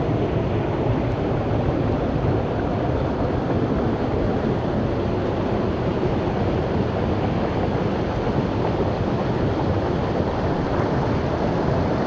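Waterfall and shallow stream rushing steadily, an even, unbroken water noise.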